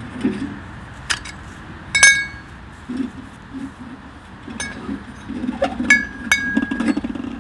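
Metal stovepipe sections of a homemade tent stove being pulled apart and handled: a handful of sharp metallic clinks, the loudest about two seconds in, several ringing briefly, with scraping of pipe against pipe between them.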